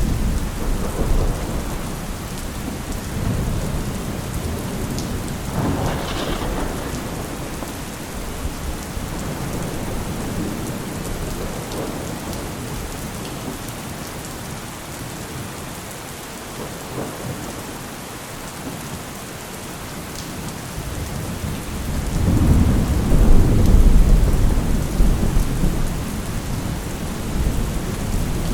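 Steady rain falling, with thunder rumbling low underneath; a long, deep roll of thunder swells up near the end and is the loudest part.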